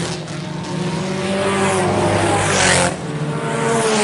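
IMCA Sport Compact race cars running at speed, their four-cylinder engines at high revs. The sound builds as a car comes by, then drops off sharply about three seconds in.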